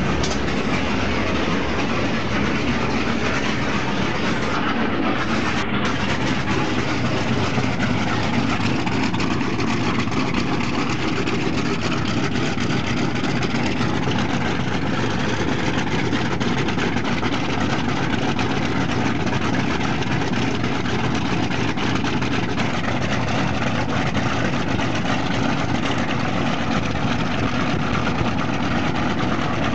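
Ilyushin Il-14T's left Shvetsov ASh-82T 14-cylinder radial piston engine running steadily in a ground run.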